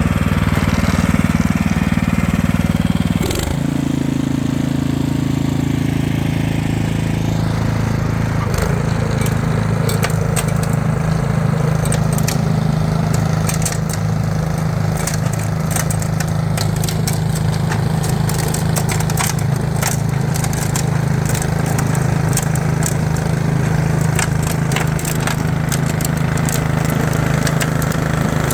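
Toro 1028 HD two-stage snowblower's single-cylinder engine running steadily under load while clearing heavy, wet snow, with its note shifting about three seconds in. From about eight seconds on, a scatter of short, sharp ticks rides over the engine.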